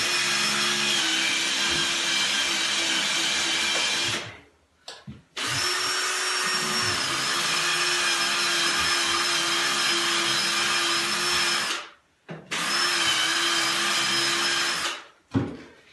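Power drill running in three long steady bursts, with short pauses between them, its whine dipping slightly in pitch under load. The bit is slightly blunt, so it has to be pushed to cut rather than going straight in.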